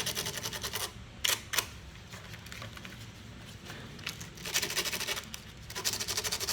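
Sandpaper scrubbed in quick back-and-forth strokes on the metal of a Briggs & Stratton lawnmower engine's magneto, cleaning it, in spells with pauses. Two sharp taps come between spells, about a second in.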